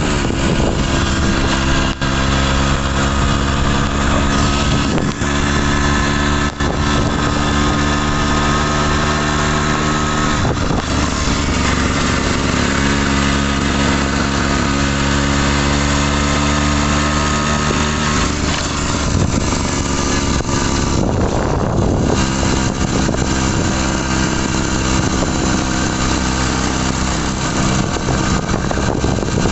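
Daelim motorcycle engine running steadily, with a brief rise and fall in pitch about twenty seconds in.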